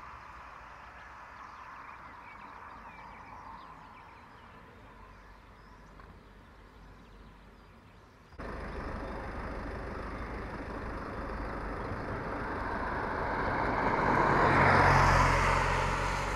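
Faint outdoor background noise, then a sudden cut to louder ambience in which a road vehicle passes: its sound swells to a peak with a low engine hum near the end, then eases off.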